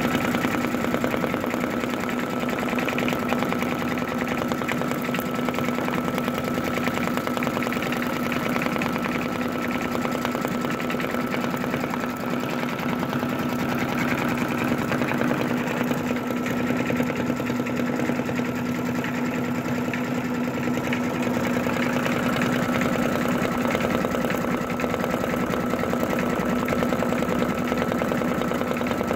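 Computerized embroidery machine stitching a design in a hoop: a fast, even run of needle strokes over a steady motor hum, unchanging throughout.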